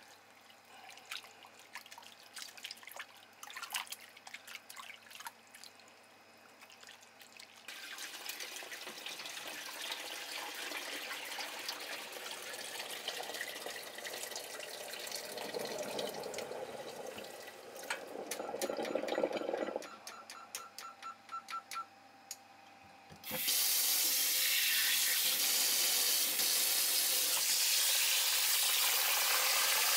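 Water sloshing and dripping in a metal bowl in a sink as hands rub salmon roe free of its skein, with water running more steadily after a few seconds. About three quarters of the way through, a tap comes on hard and pours steadily into the bowl to rinse the loose roe.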